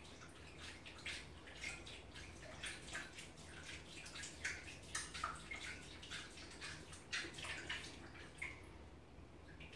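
Raccoon dabbling in the water of a toilet bowl: irregular small splashes and drips, coming in quick clusters, busiest in the middle and thinning out near the end.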